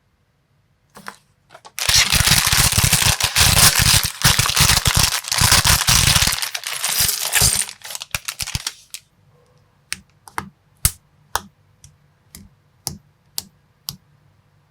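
A loud, dense rattle of loose small plastic building bricks for about six seconds, then a run of sharp single clicks about two a second as pieces are snapped into place.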